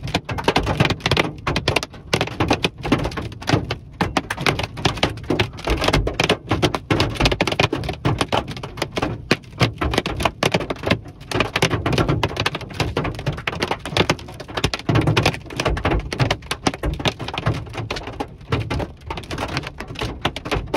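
Pea-sized to golf-ball-sized hail hitting the roof and windshield of a moving vehicle, heard from inside the cabin: a dense, irregular clatter of hard impacts that keeps on throughout.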